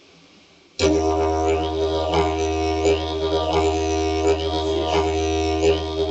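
Didgeridoo starting up about a second in and played as a steady low drone, with a rhythmic sweep in its upper overtones repeating a little faster than once a second.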